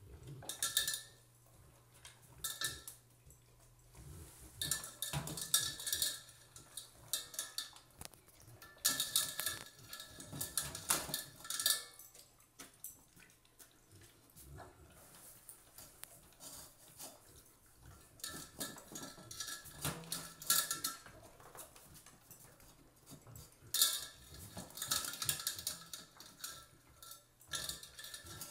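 Dog eating dry food from a stainless steel bowl: bursts of clattering as the food and its muzzle knock against the metal bowl, which rings briefly, with quieter stretches between.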